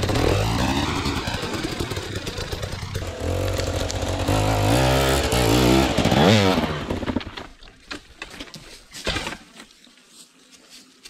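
Dirt bike engine running hard, its pitch rising and falling with the throttle for about seven seconds, then dropping away to much quieter, with a few knocks near the end.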